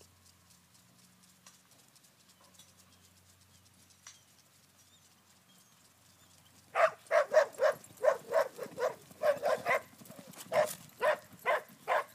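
A dog barking: quiet at first, then about seven seconds in a rapid string of loud barks, four or five a second, breaking into shorter bunches of barks.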